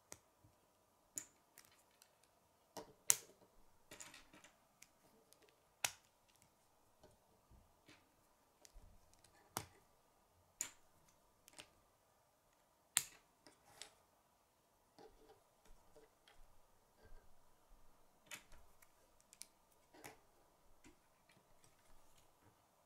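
Plastic K'nex rods and connectors clicking as they are snapped together by hand, with irregular sharp snaps and light handling of the pieces; the loudest snaps come about three seconds in and about thirteen seconds in. A faint steady hum runs underneath.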